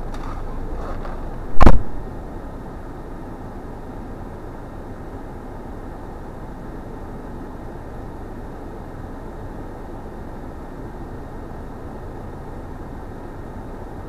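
Car engine idling steadily, heard from inside the stationary car's cabin, with one loud thump about two seconds in.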